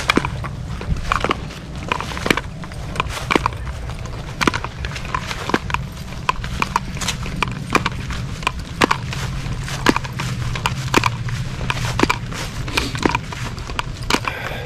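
Walking footsteps on a grass path, sharp and regular at about two a second, over a low rumble of wind on the microphone.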